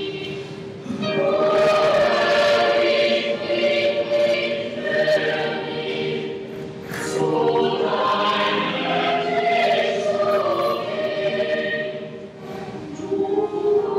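Boys' choir singing in long, held phrases, with short breaks between phrases about a second in and near the end.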